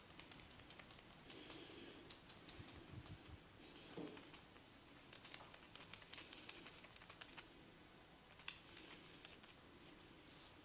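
Faint, quick clicks and soft rubbing of a barber's hands working over a person's head and hair during a massage. The clicks come in irregular clusters, with one louder snap about eight and a half seconds in.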